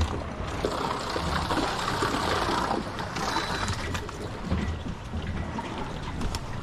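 Water rushing and splashing, with a low, uneven rumble underneath.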